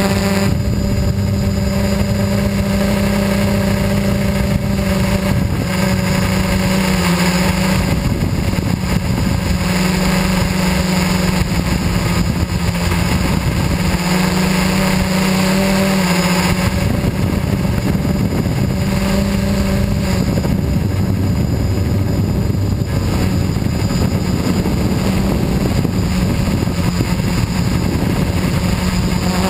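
FPV quadcopter's electric motors and propellers whining steadily in flight, the pitch shifting a few times as the throttle changes, over rushing wind noise.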